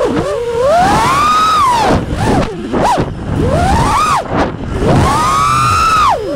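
FPV quadcopter's brushless motors whining, the pitch sweeping sharply up and down again and again as the throttle is punched and cut.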